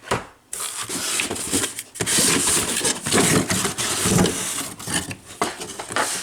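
Packaged Hot Wheels die-cast cars being handled: plastic blister packs and card backs rustling, crinkling and clacking against one another.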